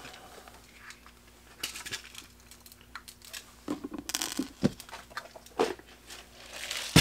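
Intermittent crinkling and rustling of plastic packaging with scattered small clicks, as fly-tying beads are fetched and handled for the fly's eyes.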